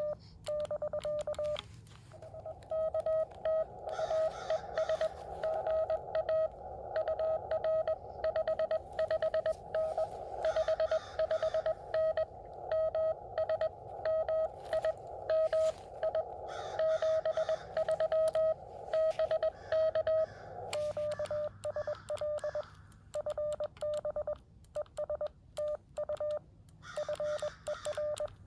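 Morse code (CW) from a Xiegu X6100 ham radio transceiver: a single steady-pitched tone keyed on and off in dots and dashes. Through most of the middle the keying sits over a hiss of band noise; at the start and near the end the tone comes through clean, with quiet gaps between characters.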